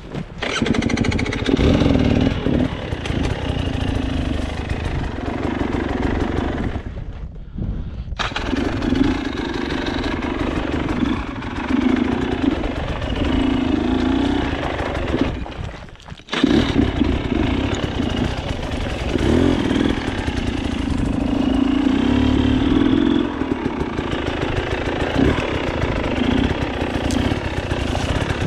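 KTM enduro motorcycle engine revving in uneven bursts, the throttle opening and closing. The sound drops away briefly twice, about a quarter of the way in and again just past halfway, then picks up again.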